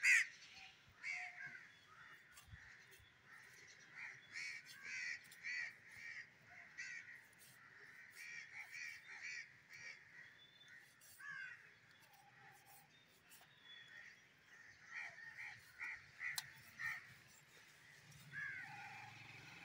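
Crows cawing, many short calls coming in quick runs, with a few faint clicks between them.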